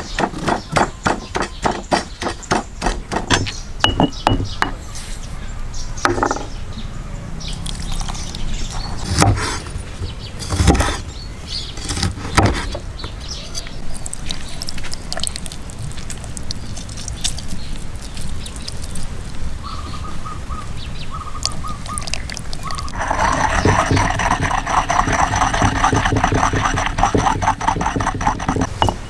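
Stone pestle pounding in a stone mortar, a steady run of knocks about three a second, then only scattered strikes. Near the end comes faster, closer pounding and mashing of a wet green paste.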